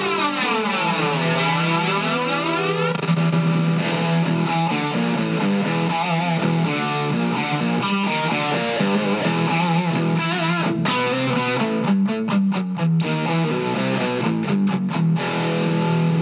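High-gain distorted electric guitar played through a Vox Valvetronix AD50VT-XL combo amp on its Buzzsaw amp setting, with the amp's built-in effects switched in. A sweeping, whooshing modulation colours a held low note at first and fades about three seconds in. After that the riffing goes on under a different effect, breaking into choppy stop-start chords near the end.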